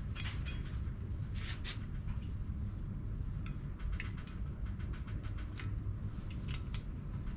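Scattered light metallic clicks and clinks as parts are handled at the cam-gear end of a Honda D-series engine, over a steady low hum.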